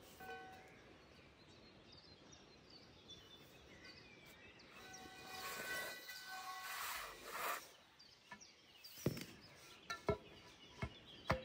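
Faint outdoor background with a steady horn-like tone held for about two seconds midway, then a few sharp knocks near the end as a steel scaffold pole is handled and stood into the streambed.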